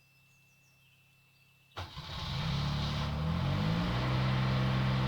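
Zanotti transport refrigeration unit's engine starting: after a second and a half of quiet it suddenly kicks in, picks up speed over a couple of seconds and settles into a steady run.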